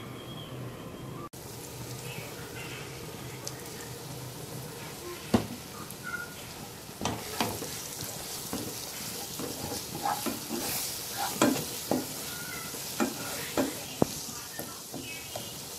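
Chopped onion and masala frying in a pan, sizzling steadily while a wooden slotted spatula stirs and scrapes it, with a string of knocks of the spatula against the pan from about a third of the way in.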